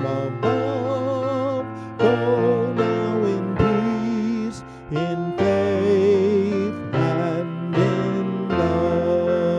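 Slow keyboard music: sustained chords and held melody notes that waver slightly in pitch, changing about every second.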